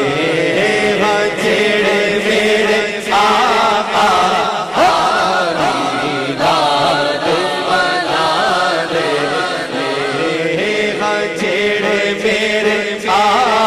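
A man's voice singing a naat unaccompanied into a microphone, drawing out long, wavering melismatic notes with no clear words, over a steady low tone.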